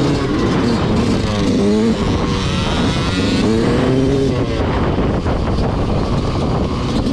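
Motorcycle engine revving, its pitch rising and falling again and again as the throttle is worked.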